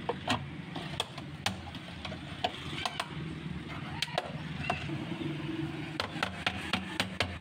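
Small wooden mallet tapping a deep freezer's inner liner sheet back into place at the cabinet edge: scattered sharp knocks, coming in a quicker run near the end.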